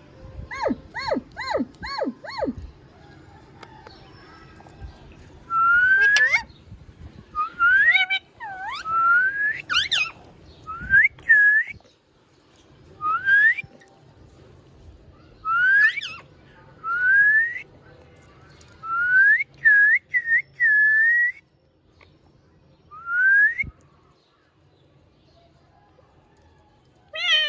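Indian ringneck parrot (rose-ringed parakeet) calling: a quick run of five short calls about a second in, then over a dozen separate upward-sliding whistles, several with a hook at the top.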